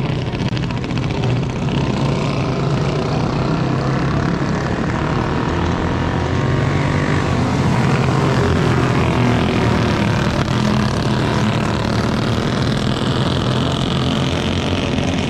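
Flathead racing kart engine running steadily, a single-cylinder side-valve four-stroke.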